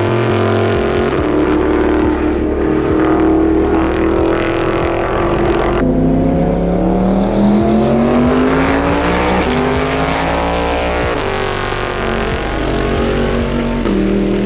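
Toyota Supra GT300 race car's high-revving V8 engine, loud, held steady at first, then climbing in pitch twice as it pulls through the revs, and falling away near the end.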